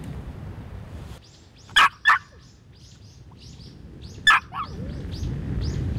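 Birds chirping: a steady run of short, high, downward-sliding chirps, about three a second, with two pairs of loud, sharp calls about two seconds in and again a little past the middle.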